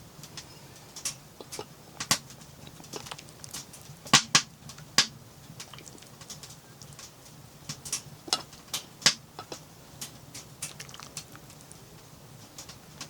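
Metal spoon clinking and scraping against a camp pot while eating: irregular sharp clicks, a few louder knocks about four to five seconds in and again near nine seconds.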